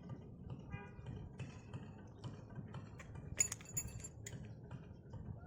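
Scattered light clicks and clinks over a low steady rumble, with the sharpest click a little after three seconds in.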